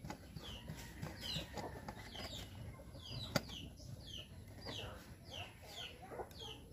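Chickens calling: a run of short, high peeps, each falling in pitch, about two a second. A single sharp click sounds about three and a half seconds in.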